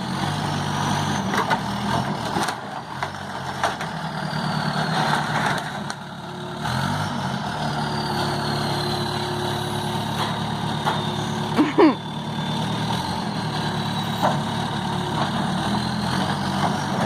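Backhoe engine running steadily while it works through demolition debris, dipping briefly about six seconds in. A few sharp knocks and a short loud screech just before twelve seconds stand out over it.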